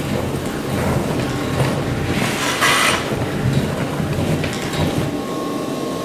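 Industrial textile vacuum cleaner running steadily, its suction tube drawing in loose textile fibre fluff, with a louder rushing hiss about two to three seconds in.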